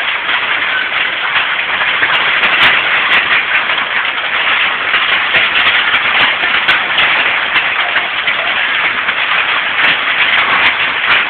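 Hail coming down hard in strong wind: a loud, steady clatter of countless small impacts.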